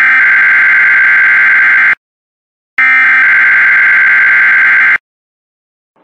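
Electronic emergency-alert attention tone, harsh and buzzy: two long beeps of about two seconds each with a short gap between, then it stops.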